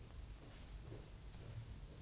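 Quiet room tone with a faint low hum; no distinct working sounds are heard.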